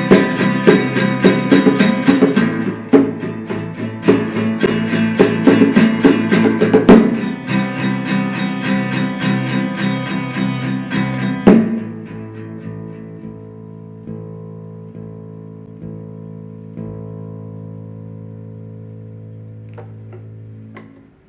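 Electric and acoustic guitars strumming quickly together, ending on a sharp final chord about halfway through that rings on and slowly fades, stopping just before the end.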